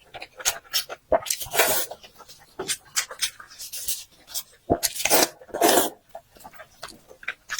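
Close-up eating sounds of a person chewing braised pork: irregular wet smacks and mouth clicks, with a few longer slurping, sucking bursts.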